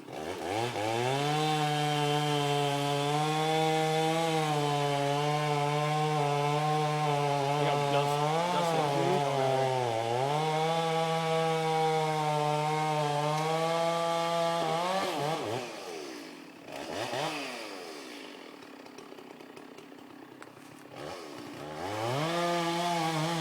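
Chainsaw revving up and running at full throttle while cutting a tree, its pitch dipping briefly twice. About fifteen seconds in it drops to a quieter idle with one short blip of the throttle, then revs back up near the end.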